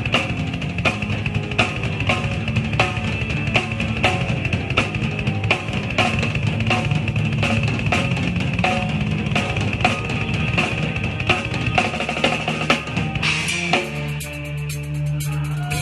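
A rock drum kit playing a steady beat of kick, snare and cymbals, with a bass and guitar band underneath. About two seconds before the end the drumming stops on a cymbal crash, leaving a held chord ringing.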